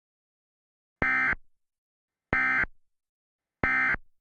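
Emergency Alert System end-of-message data signal: three identical short bursts of digital tones, about 1.3 seconds apart, marking the end of the alert.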